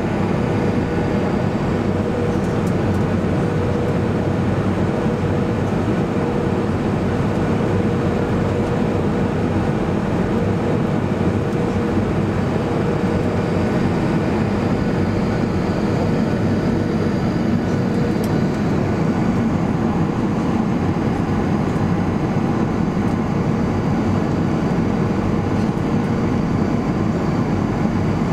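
Steady cabin noise inside a Boeing 737-800 in flight: its jet engines and the air rushing past the fuselage make an even, unbroken rush with a faint steady hum.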